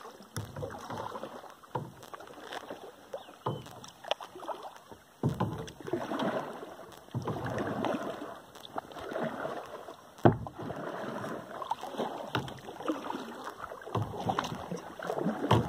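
Kayak paddle strokes swishing and splashing through the water in a repeated rhythm, with scattered knocks and one sharp knock about ten seconds in.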